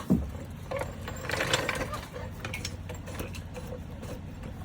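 Low-profile floor jack being pumped to lift a car, its mechanism clicking and creaking with each stroke of the handle.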